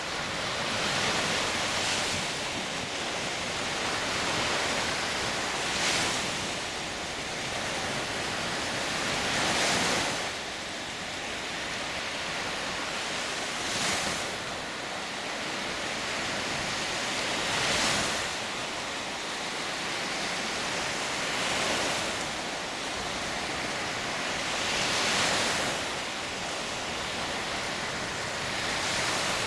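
Small Baltic Sea waves breaking and washing up a sandy beach, a steady surf hiss that swells with each break about every four seconds.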